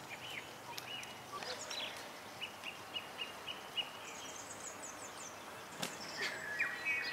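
Birds calling over steady outdoor background noise: a run of short repeated chirps, then a high, rapid trill about four seconds in, with a single sharp click near the end.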